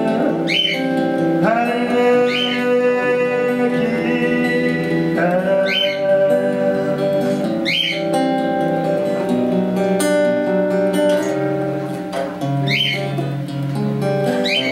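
Acoustic guitar playing a slow song passage with no words, over long sustained accompanying notes.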